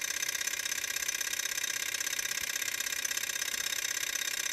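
Small stainless-steel hot-air Stirling engine running steadily, its pistons, linkage and flywheel making a fast, even mechanical clatter. It is running under load, driving a small generator that is supplying about 100 milliamps.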